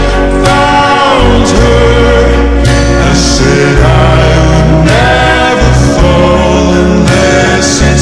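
Slowed-down, reverb-heavy pop ballad: a male voice sings long, gliding notes over sustained low bass notes.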